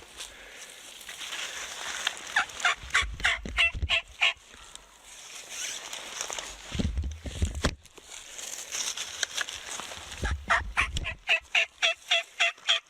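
Turkey yelping in two runs of short, evenly spaced notes, about four a second, the second run longer, near the end. Low thumps come in between.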